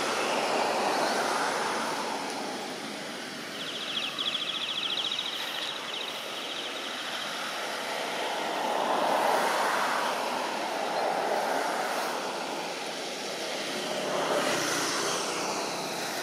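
Steady rushing outdoor background noise that swells and fades a few times, with a brief rapid high buzzing about four seconds in.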